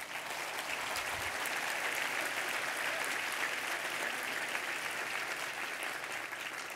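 Audience applauding, a steady spread of many hands clapping that eases off near the end.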